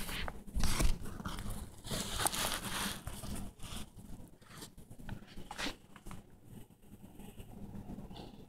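Praying mantis chewing through a live Dubia roach's shell: irregular crunching and crackling. There is a louder rustle about a second in.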